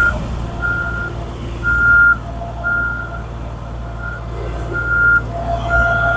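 Reversing alarm of a heavy road-works vehicle beeping about once a second, over the low steady rumble of its diesel engine.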